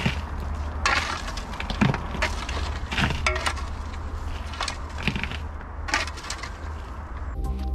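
A steel shovel scraping and cutting into stony clay soil, a series of uneven crunching strokes about a second apart. Music comes in near the end.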